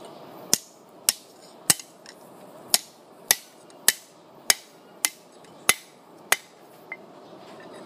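Hand hammer striking a length of rebar on a Harbor Freight cast iron anvil: about ten sharp, evenly spaced blows, a little under two a second, with a short pause partway through, as the rebar is shaped into a forge poker.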